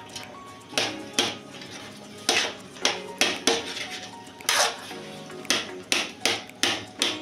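Ladle stirring in a metal kadai and knocking against it, about a dozen sharp metallic clanks that ring briefly, coming faster toward the end.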